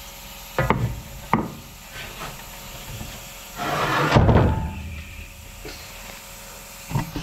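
Two sharp knocks, then a longer scraping rub and clatter of wood and metal as a loose rusty mower disc and a wooden plank are shifted on a plank floor, with a few clicks near the end.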